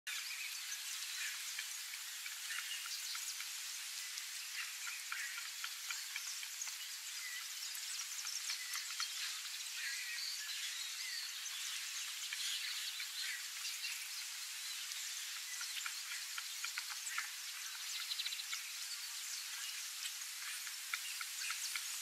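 Outdoor ambience of calling insects: a steady high hiss with many short chirps and clicks scattered through it.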